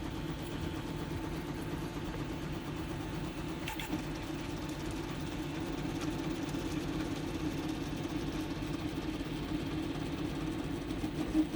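NEMA 17 stepper motors of a 3D printer, driven by TMC2209 drivers in StealthChop mode, giving a steady droning resonance hum. This is the strange resonance the owner gets at about 60 mm/s. A single click comes about four seconds in.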